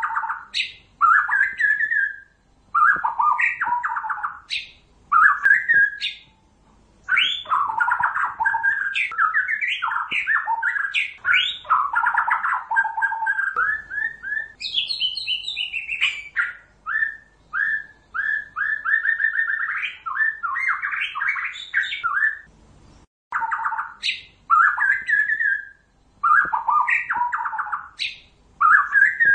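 White-rumped shama singing loudly: varied whistled phrases with long runs of quick repeated notes, broken by short pauses.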